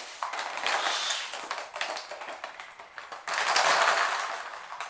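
Surprise eggs and their plastic packaging being handled: rustling with many light clicks and taps, loudest in a rustle about three and a half seconds in.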